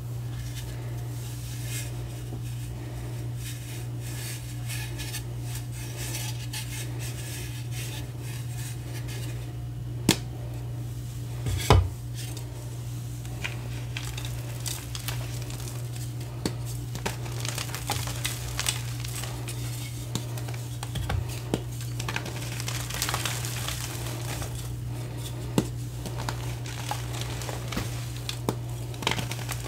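Teal gym chalk blocks crunching and crumbling as a hand squeezes them into powder: a run of small dry crackles that grows busier in the last third, with two sharp knocks about ten and twelve seconds in. A steady low hum runs underneath.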